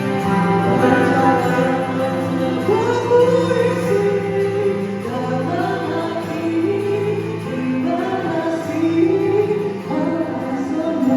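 Music playing: a slow melody gliding over sustained held notes.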